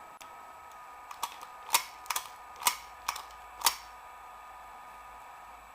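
ERA double-locking night latch being worked by hand: about six sharp metallic clicks of its bolt and locking mechanism, spaced about half a second apart.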